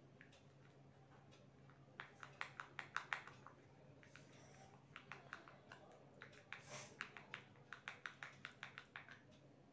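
Faint runs of rapid small clicks, several a second: a short run about two seconds in and a longer one from about five seconds to near the end, over a steady low hum.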